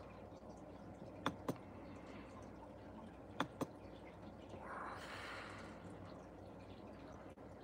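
Faint room tone broken by two quick pairs of sharp clicks, the pairs about two seconds apart, then a soft hiss-like swell lasting about a second.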